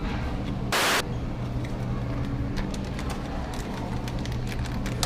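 Indoor background noise: a steady low mechanical hum, a short loud burst of hiss about a second in, and scattered faint clicks.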